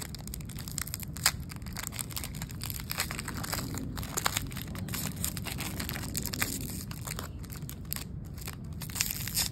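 Plastic wrapper of a Topps baseball card pack crinkling and tearing as the pack is opened, a rapid irregular crackle throughout.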